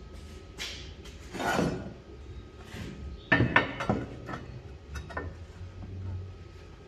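Steel angle pieces being handled and fitted into a steel-angle frame: a scrape about a second and a half in, then a cluster of sharp metallic knocks and clinks, the loudest part, about three and a half seconds in, with a few lighter taps after.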